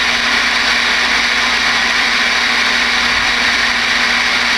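Steady hiss of receiver static from a Connex CX-33 SSB ten-meter base station's speaker, with no voice coming through.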